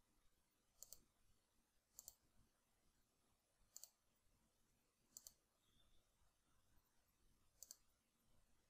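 Faint computer mouse clicks, five in all, a second or two apart, each a quick double tick.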